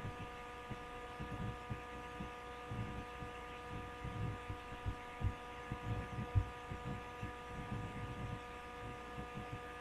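Steady low electrical hum with several faint, even whining tones above it, and faint irregular low thumps scattered through it.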